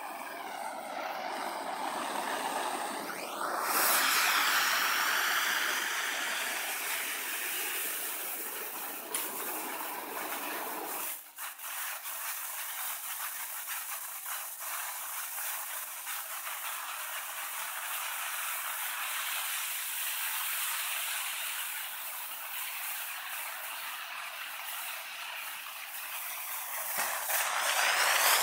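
Potassium chlorate and flour fuse burning with a steady hiss. The hiss is softer for the first few seconds, grows suddenly louder about four seconds in as the fuse catches, and swells again near the end. The fuse burns steadily rather than fizzling out, the sign that it is fully dry.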